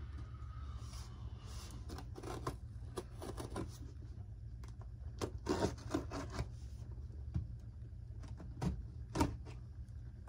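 A cardboard shipping box being handled and its taped edges scraped and cut with a small hand tool, giving scattered taps, knocks and scrapes, heaviest about halfway through and again near the end, over a steady low hum.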